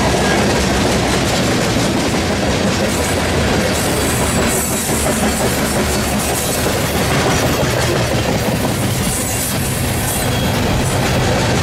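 Coal hopper cars of a freight train rolling past at speed: a steady rumble of steel wheels on the rails. Near the end a low diesel engine hum grows louder as a mid-train locomotive approaches.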